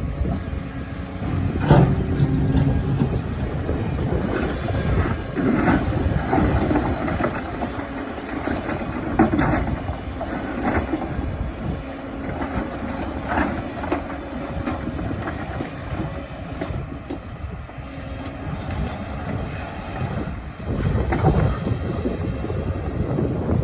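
Excavator's diesel engine running under load, with the bucket scraping and knocking against rock in scattered sharp strikes.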